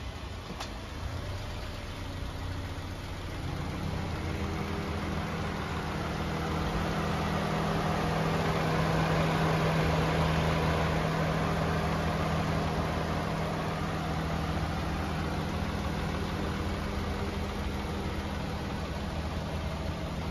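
Subaru Outback's boxer engine idling steadily, with a second steady hum joining about three seconds in. It grows louder toward the middle and eases off again.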